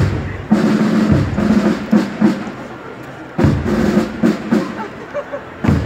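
Procession band drums beating a march cadence: repeated strokes and short rolls, with a quieter gap of about a second midway.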